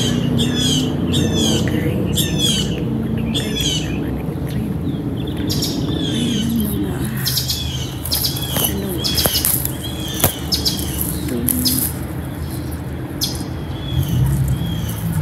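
Birds calling in a rapid series of high, down-slurred chirps over a steady low hum, with a couple of sharp snaps about two-thirds of the way through.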